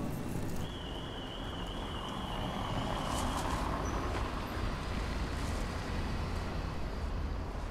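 Road traffic rumbling steadily, with a vehicle swelling past a few seconds in. A thin high tone holds for about three seconds near the start.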